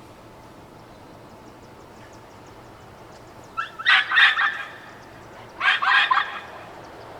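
A dog barking in two quick bursts of several barks each, the first a little past halfway and the second about a second and a half later, over a steady street background.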